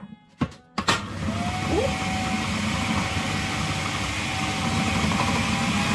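Electric food processor switched on about a second in and running steadily, coarsely chopping peppers, garlic and onions. A couple of sharp clicks come just before the motor starts.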